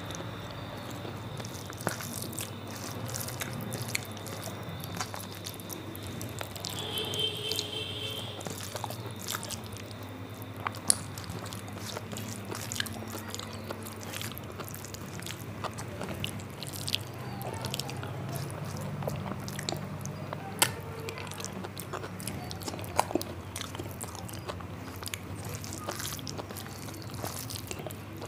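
Close-miked chewing and mouth sounds of a person eating rice mixed with dal made with kochur loti (taro stolons). Irregular wet clicks and smacks run over a low steady hum.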